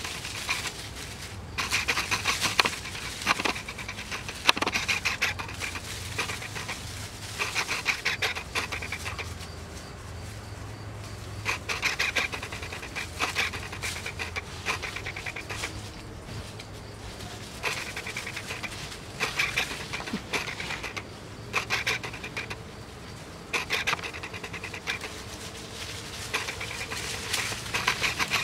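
Dry fallen leaves rustling and crunching in irregular bursts as two puppies run and wrestle through them.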